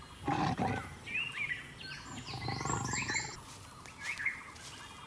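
A leopard giving two low, rough calls, a short one just after the start and a longer one around the middle, while birds chirp and whistle.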